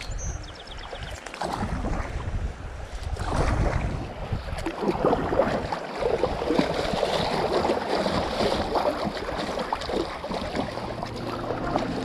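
River water rippling and splashing around a kayak running through a shallow riffle, with low wind rumble on the microphone. Music comes in near the end.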